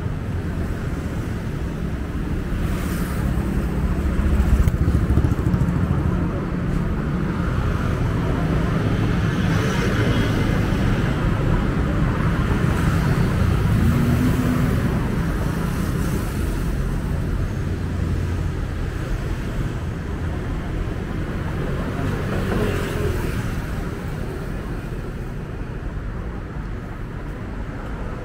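Road traffic: a steady rumble of passing cars and motorcycles, with one engine note rising and falling near the middle.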